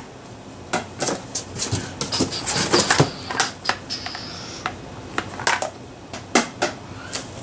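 Plastic golf discs, Millennium Omega drivers in DT plastic, clacking against each other and the cardboard box as they are lifted out and handled: an irregular run of sharp clicks and knocks.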